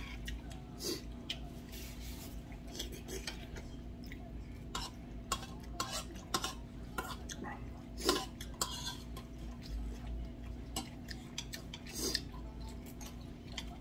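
Metal spoon clinking and scraping against a stainless steel bowl as food is stirred and scooped, a scatter of short light clicks throughout, over a faint steady hum.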